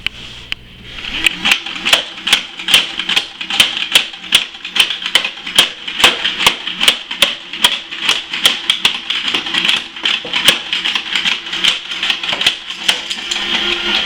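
Nerf blaster firing foam darts in quick succession, about three sharp shots a second over a steady whir, starting about a second in and stopping near the end.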